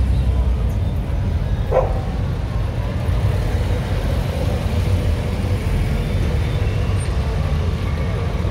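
Classic Alfa Romeo coupés' twin-cam four-cylinder engines running at low revs as the cars roll slowly past over cobblestones, a steady low engine sound.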